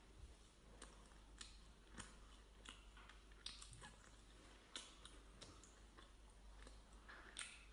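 Faint chewing of food, with scattered soft clicks about once a second.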